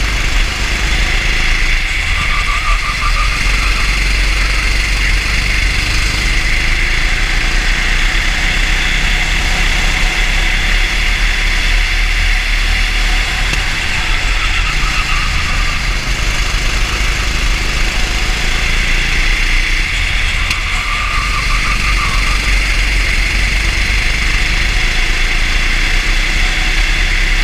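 Racing kart's engine running at speed, loud and steady, heard through the kart's onboard microphone along with wind and track noise.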